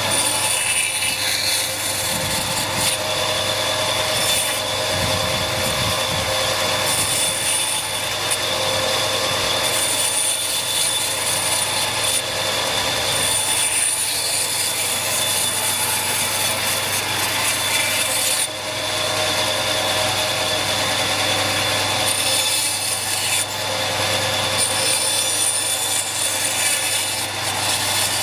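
A woodworking tool cutting wood: a steady, dense rasping noise with a thin, constant high whine.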